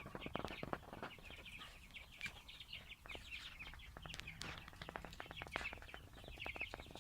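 Free-ranging chickens calling faintly with quick, repeated chirpy notes, among scattered light clicks.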